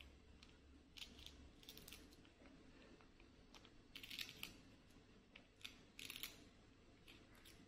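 A young macaque crunching and chewing puffed snacks: faint, crisp crunches in a few short clusters.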